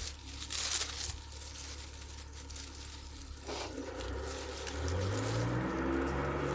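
A few short clicks and rustles over a quiet stretch, then an engine comes in about five seconds in, its pitch rising and then holding steady.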